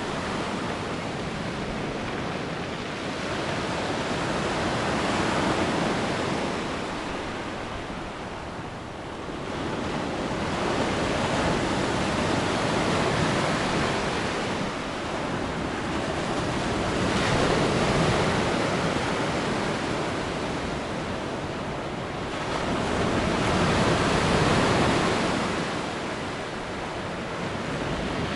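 Black Sea surf washing on the shore: a steady rushing of waves that swells and eases in slow surges, about one every six seconds.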